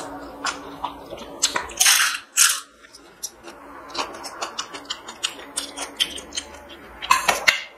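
Fingers mixing rice on a steel plate: many small wet clicks and squelches, with a few louder rustles about two seconds in and near the end.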